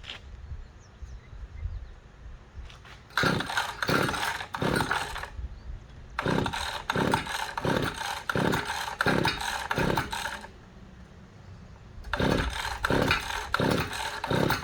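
Small gasoline engine being pull-started in three bursts, turning over with a regular chug of compression strokes but never catching or firing. The owner suspects the spark plug, which doesn't look like it was firing.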